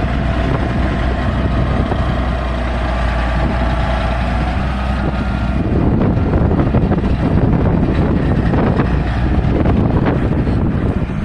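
Massey Ferguson tractor engine running steadily under ploughing load. From about halfway, strong wind buffets the microphone over it.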